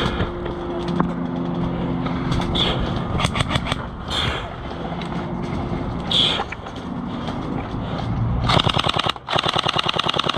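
Airsoft guns firing: a few scattered single shots, then two rapid full-auto bursts near the end, each a fast, even rattle of shots, over a steady low hum.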